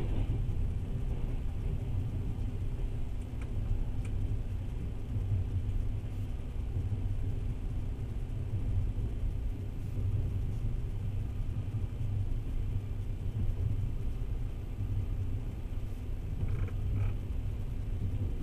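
Passenger train running at speed, a steady low rumble of wheels on rails heard from inside the carriage.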